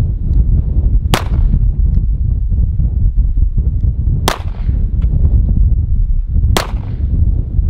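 Arsenal Strike One pistol fired three single shots, a few seconds apart, over a constant heavy rumble of wind buffeting the microphone.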